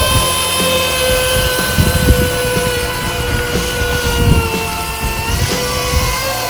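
Small electric gear motor of a DIY RC model machine whining steadily, its pitch sagging a little midway as it works under load, with irregular low knocks and clunks.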